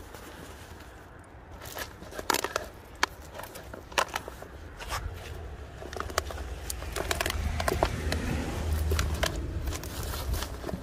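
Irregular clicks, crackles and rustling as a mesh fish trap is handled and shaken out over a plastic tub. A low rumble of handling noise joins about halfway in.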